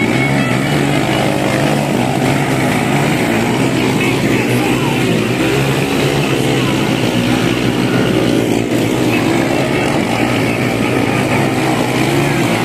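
Motocross motorcycle engines racing through mud, a loud, steady drone.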